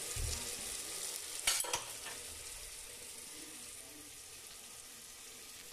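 Tomato masala sizzling as it fries in mustard oil in an open pressure cooker, a steady hiss that slowly grows fainter. A brief clatter comes about a second and a half in.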